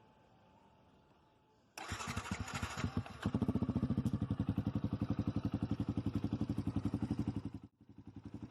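Yamaha Crosser 150's single-cylinder four-stroke engine, fitted with a Roncar aluminium sport exhaust, starting about two seconds in. It catches after a second of uneven firing, then idles with a steady, even beat of exhaust pulses. The sound drops out briefly near the end.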